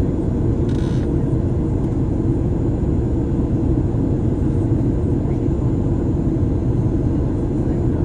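Steady low rumble of engine and airflow noise inside a Boeing 737 airliner cabin in flight, with a brief hiss about a second in.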